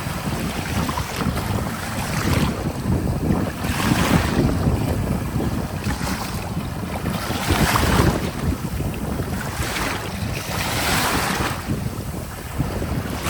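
Small sea waves breaking and washing up the shore, a wash swelling and falling back about every three to four seconds, with wind buffeting the microphone underneath.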